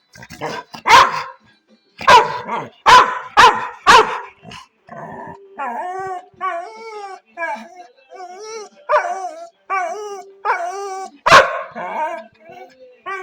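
Labrador retriever barking, about five sharp barks in quick succession, then making long, wavering, whining cries that bend up and down in pitch, broken by one more loud bark near the end.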